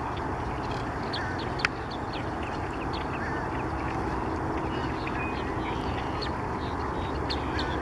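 Birds calling: short, scattered calls from a wetland flock over a steady low rumble, with one sharp click about one and a half seconds in.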